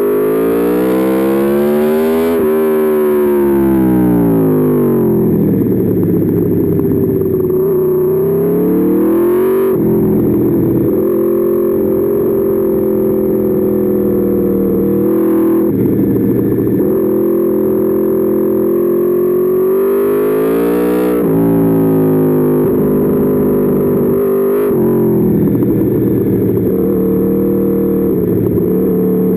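Aprilia Tuono V4 motorcycle's V4 engine, heard onboard, revving hard and easing off in turn. The pitch climbs, then falls away or drops sharply several times, at about 2.5, 10, 15 and 21 seconds in.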